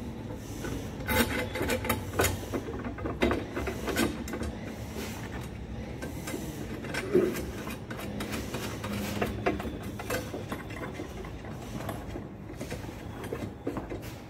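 Irregular metal clicks, taps and scraping as the steel parts of a hand-built marking machine are fitted together and a nut is worked on a bolt by hand. The knocks are busiest in the first five seconds, with one louder knock about seven seconds in.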